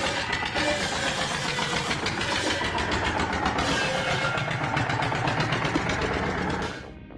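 Car engine running hard, driving a homemade wood-cutting saw, with a steady rapid rattle; the sound fades out near the end.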